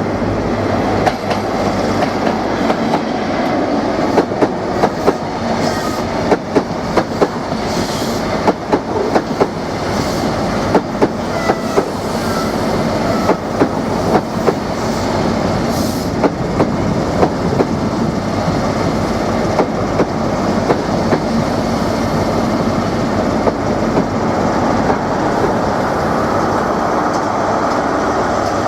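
Great Western Railway High Speed Train (Class 43 power cars with Mark 3 coaches) going by, its wheels clicking over rail joints in a quick, irregular run of clacks through the first half, then a steadier rumble.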